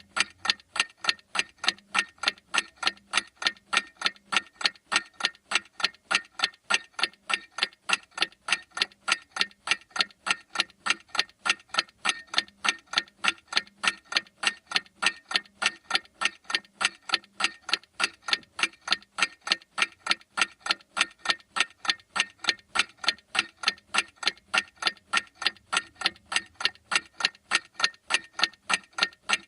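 Clock ticking steadily: sharp, evenly spaced ticks, a few a second, with no change in pace or loudness.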